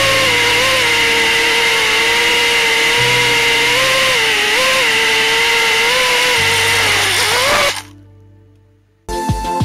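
FPV quadcopter's iFlight Xing 2750 KV brushless motors and propellers whining steadily, with short rises in pitch as the throttle is blipped. Near the end the whine sags and cuts off as the drone comes down in the grass. Low sustained music notes sit underneath, and a music track with a steady beat starts just before the end.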